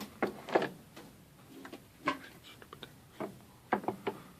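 Irregular metal clicks and knocks as a water valve part is handled and clamped in a bench vise, about six sharp taps spread over a few seconds.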